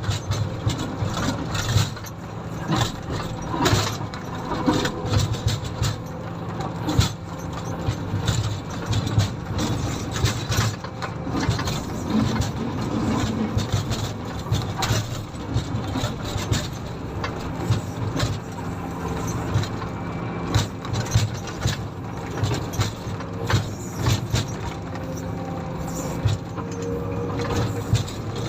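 Komatsu motor grader's diesel engine running steadily while grading, with frequent short rattles and knocks from the machine throughout.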